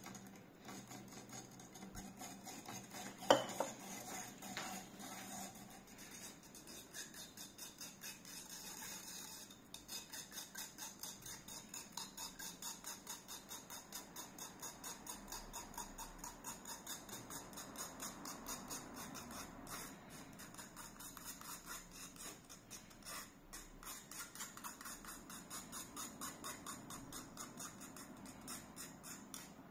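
A stick stirring and scraping pineapple pulp in a fine-mesh metal strainer, pressing the juice through in a steady rhythm of about three strokes a second. A single sharp knock about three seconds in.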